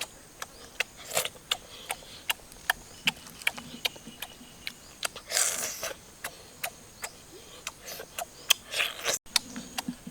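A person chewing and eating with their mouth: frequent sharp wet smacks and clicks, several a second, with a few longer slurping or crunching stretches, about a second in, around the middle and near the end.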